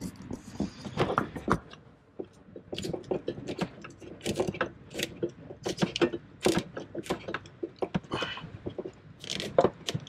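Hands working on wiring and connectors at a fuse block, fixing a corroded amplifier power connection: irregular clicks, scrapes and rattles of wire and plastic parts.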